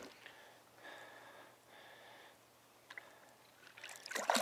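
Mostly quiet, then near the end a catfish kicks free and splashes at the water's surface beside the boat as it is released.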